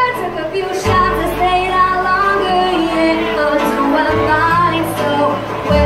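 Live acoustic duo playing through a PA: acoustic guitars strumming with a woman singing. Low bass notes hold under the song and change chord about a second in and again about four seconds in.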